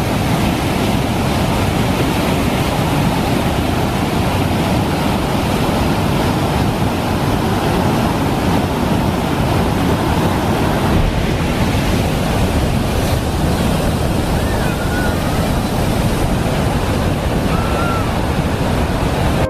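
Whitewater rushing steadily through a narrow rock canyon. Two faint short whistles sound near the end.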